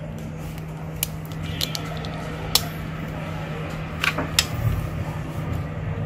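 A few sharp clicks and taps from handling a disassembled smartphone's parts, over a steady low hum.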